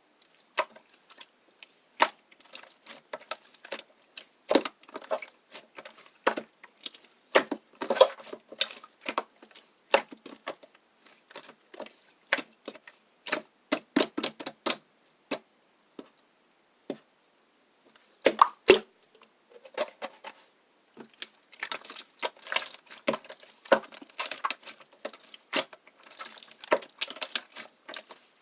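Slime being pressed and squished by hand, making irregular sharp clicks and small pops, with a quieter spell a little past halfway and a denser run of crackling near the end.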